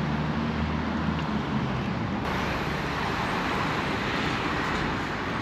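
Steady motor-vehicle road noise. A low engine hum fades out in the first second, and the sound shifts abruptly to a brighter, hissing road noise about two seconds in.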